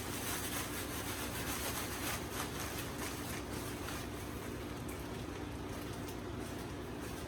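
Rustling and rubbing as items are handled and rummaged through in a box, with many small scuffs over a steady low hum.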